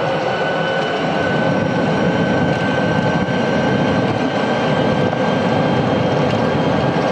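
Club Car Precedent golf cart driving at speed: a steady high whine from the drive, rising slightly about a second in, over tyre and wind noise. No clunks come from the freshly rebushed front end.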